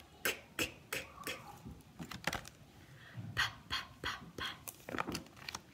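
A woman sounding out the unvoiced phonics sounds /k/ for the letter c and then /p/ for the letter p, each as a short breathy puff repeated about three times a second.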